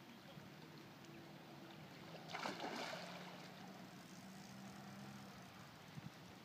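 A hooked grass carp splashing and thrashing at the water's surface, one short splash about two seconds in, over a faint low hum.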